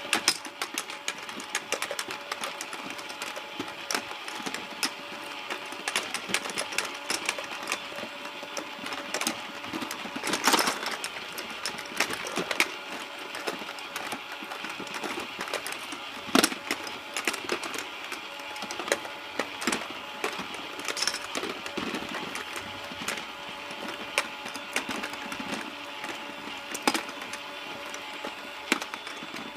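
Battery-powered toy fishing game running: a small motor turns the plastic pond with a steady whir and constant irregular plastic clicking.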